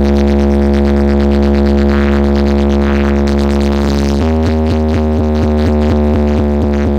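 Loud electronic music played through a large DJ speaker stack: a held deep bass drone that about four seconds in switches to a fast, evenly chopped pulsing pattern.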